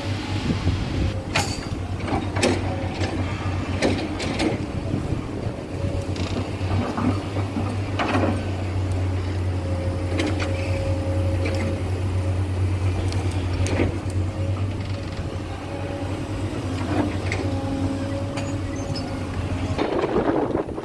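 Heavy diesel excavator working: a steady low engine drone with scattered knocks and clanks. The drone cuts off abruptly near the end.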